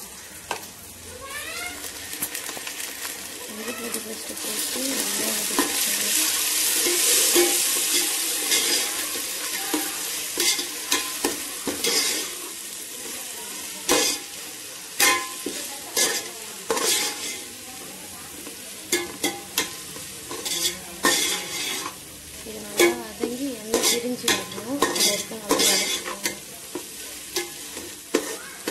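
Sliced onions and ginger-garlic paste sizzling in hot oil in a metal pot as they are fried until browned, stirred with a metal slotted spoon that scrapes and knocks against the pot. The sizzle swells a few seconds in, and the spoon's knocks come thick and fast through the second half.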